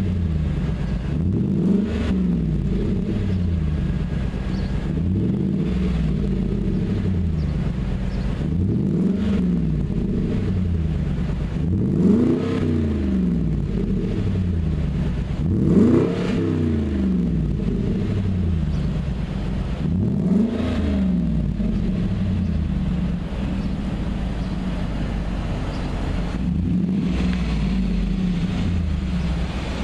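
Jaguar XK's V8 breathing through an aftermarket stainless-steel quad-exit sport exhaust, idling while standing still and blipped in quick revs. Each rev rises and falls straight back to idle, about seven times over the first twenty seconds. After that it settles into a steady idle.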